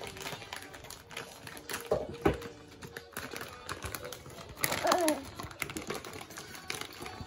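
Clear plastic packaging crinkling and rustling as a child handles protective pads and gloves in their bag. There is a knock about two seconds in and a short voice with a gliding pitch about five seconds in.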